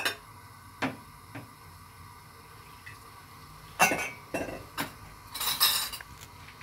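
A few clinks and knocks of a glass water jug and a ceramic bowl as water is added to pre-cooked white corn flour for arepa dough, with a brief hiss about five and a half seconds in.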